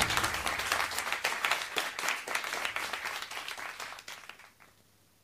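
Audience applause, many quick claps together, fading out gradually until it stops about four and a half seconds in.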